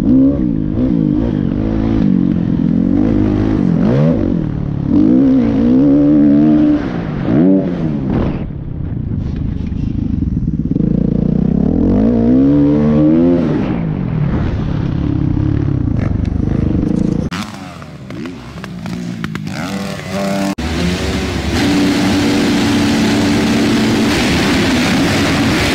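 Dirt bike engine revving up and down again and again through gear changes while riding a motocross track. About two-thirds of the way through the sound cuts to engines running at the start gate in an echoing indoor arena, one held at a steady rev near the end.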